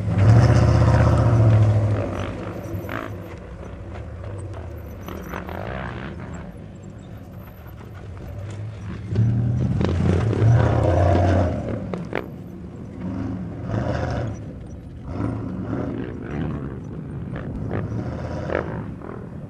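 Hummer H1's engine revving in surges as it drives over dirt mounds: loudest in the first couple of seconds and again about ten seconds in, with smaller surges near the end.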